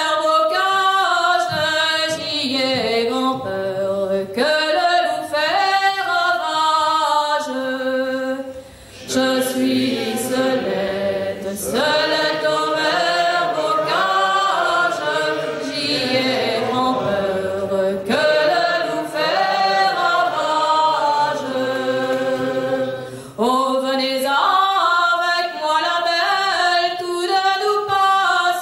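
Unaccompanied voices singing a traditional Gallo song a cappella, in long held phrases with two short breaks, about nine and twenty-three seconds in.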